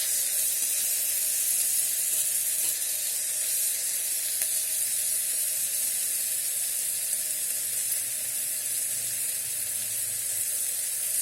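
Onions and mixed vegetables frying in oil in an electric kettle, a steady high sizzle.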